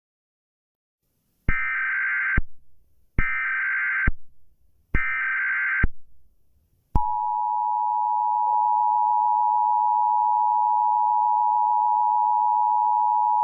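Emergency Alert System tones: about a second and a half in come three short buzzy bursts of the SAME digital data header, about a second apart, then the steady two-note EAS attention signal starts and holds without a break.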